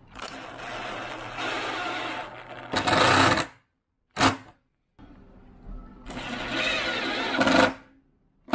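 Makita cordless driver running in bursts as it drives screws into plywood. There are two long runs of about three seconds each, each getting louder toward its end, with a short blip between them and another burst starting at the very end.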